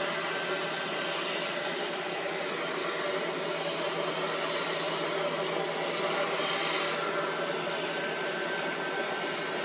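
Steady rushing background noise with a few faint steady hum tones beneath it and occasional slow swells of higher hiss. There are no distinct knocks or other events.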